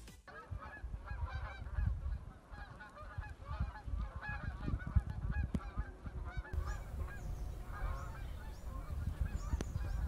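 A flock of birds calling busily, many short overlapping calls, over the gusty low rumble of wind on the microphone in a snowfall.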